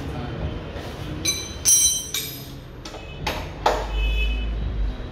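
A run of sharp metallic clinks at irregular intervals, each with a short ringing tone, and a low rumble about four seconds in.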